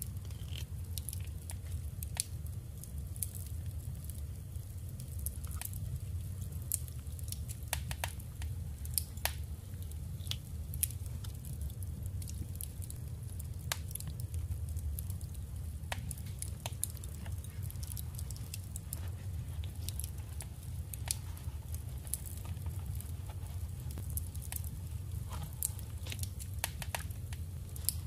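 Paper scraps and a small journal being handled: scattered sharp little clicks, taps and crinkles over a steady low hum.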